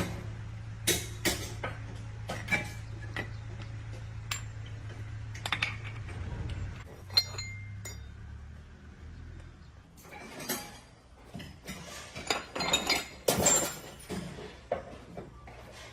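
Metal tools and steel parts clinking and knocking as they are handled, over a steady low hum that dies away about six seconds in. Near the end comes a busier run of knocks.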